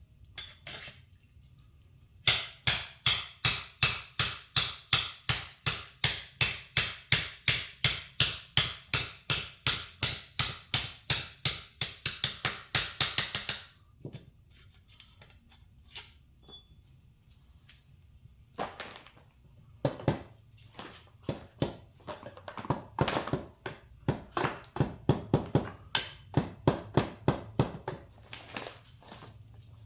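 Hammer blows on a suspension bushing in an ATV A-arm: a steady run of about three blows a second for some ten seconds. After a pause of a few seconds comes a second, quicker and less regular run of blows.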